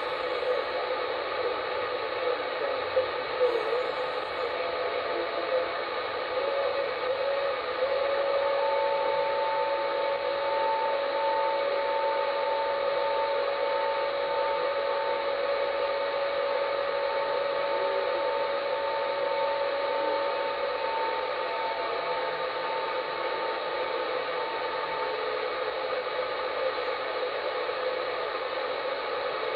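SSB CB radio receiving on channel 38 with steady band-noise hiss from its speaker. About seven seconds in, two steady whistling tones come in over the hiss, one low and one higher. They fade out after about twenty seconds.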